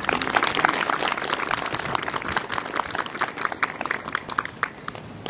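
A group of people applauding, the claps thinning out and stopping near the end.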